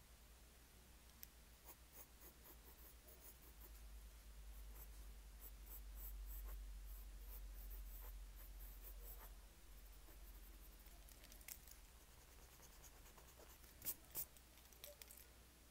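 Pencil scratching across paper in short, faint strokes, with a low steady hum underneath. Two sharp clicks sound close together near the end.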